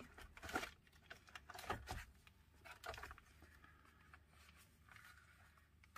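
Faint crinkling and rustling of the thin plastic wrap around a model train coach as it is handled and lifted from its tray, in scattered small crackles.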